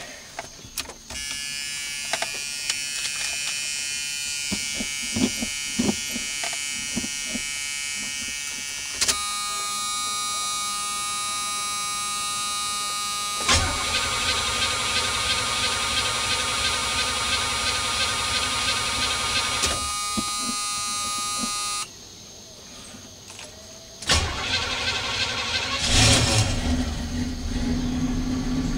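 Cold start of a 1978 Pontiac Bonneville's 301 V8 with a two-barrel carburettor. The starter cranks for several seconds under a steady high warning tone without the engine firing, then stops. After a pause and a click, the engine catches near the end and settles into a steady idle.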